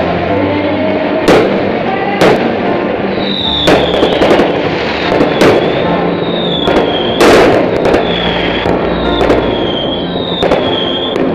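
Fireworks going off: a string of sharp bangs about a second apart, the loudest about seven seconds in, with a run of short falling whistles from about three seconds on.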